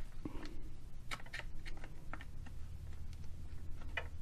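Scattered light clicks and taps of a plastic model car and its small parts being handled, over a steady low hum.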